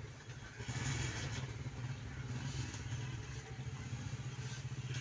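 An engine running steadily with a low, fast, even chugging.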